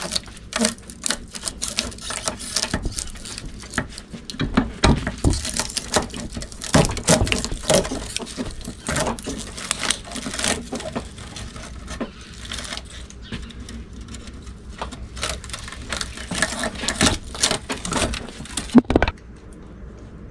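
Tongue-and-groove pliers gripping and yanking at copper windings in an electric motor's steel stator clamped in a vise: irregular metal clicks, scrapes and tugs, with a sharper snap near the end. The winding is stubborn and won't pull free.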